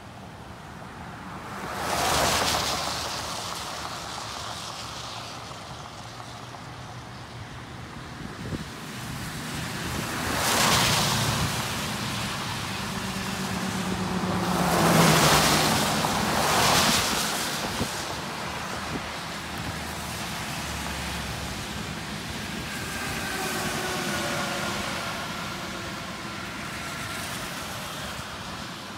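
Road traffic passing close by: four vehicles go by, each a swell of tyre hiss that builds and fades, the loudest about halfway through. One passing vehicle adds a brief engine hum. Between the passes there is a steady background rush.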